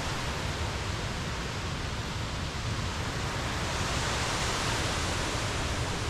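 Mountain stream rushing steadily, an even roar of water with no breaks.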